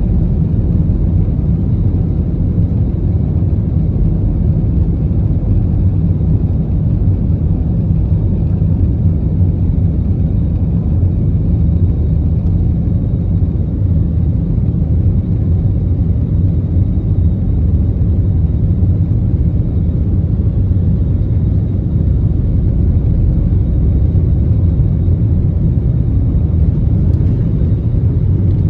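Steady low rumble of airliner cabin noise inside an Airbus A321, from its engines and the airflow over the fuselage, unchanging throughout.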